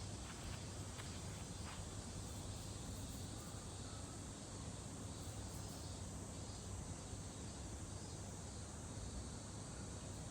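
Chorus of cicadas in summer heat, a steady, unbroken high-pitched drone.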